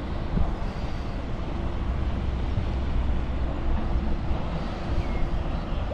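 Engine of a passing motor vessel: a low, steady drone with a faint steady hum above it.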